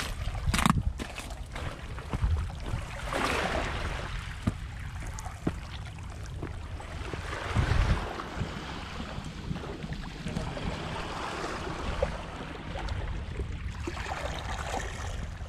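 Wind buffeting the microphone in uneven gusts over a steady wash of water at a shoreline, with a few faint clicks.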